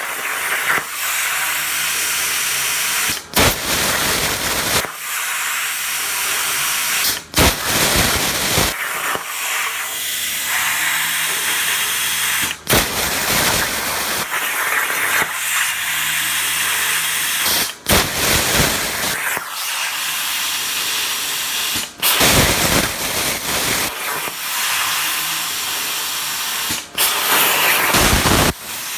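Razorweld 45 plasma cutter on a machine torch, cutting 16-gauge sheet steel at about 32 amps: a steady loud hiss of arc and air, broken every few seconds by a short cut-off with a louder burst around it.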